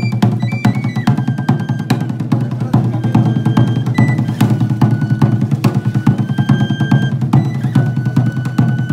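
Hand drums beaten with sticks in a rapid, steady rhythm, with high whistle-like notes held over the drumming and changing pitch every second or so.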